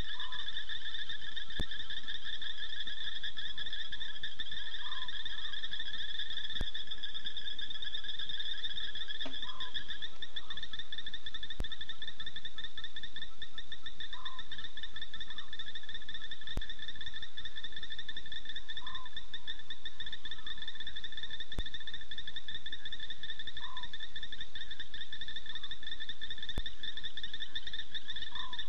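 Night chorus of the African bush: a dense, steady shrill trilling at two high pitches, with a short lower call repeating about every five seconds.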